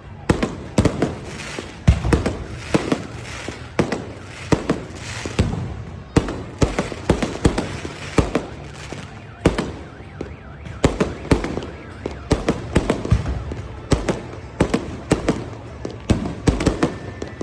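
A continuous barrage of fireworks going off: sharp bangs several times a second at irregular intervals, some louder than others.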